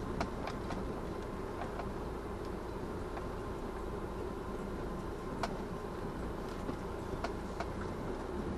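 Steady road and running noise of a moving vehicle, with scattered light clicks or rattles.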